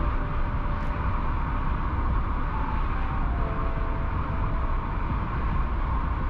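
Volkswagen Golf Mk2 driving along at a steady pace: continuous engine and road noise, a low rumble under an even hiss.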